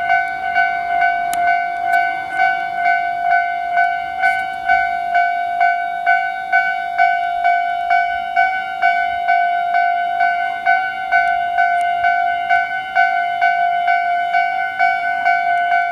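Japanese level-crossing electronic warning bell sounding its standard tone, a steady ding repeating about twice a second.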